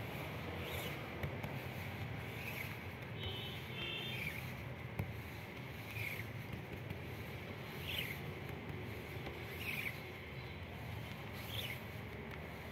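Hand squeegee scraping ink across a screen-printing mesh in repeated strokes, each stroke giving a short squeaky scrape about every one and a half to two seconds.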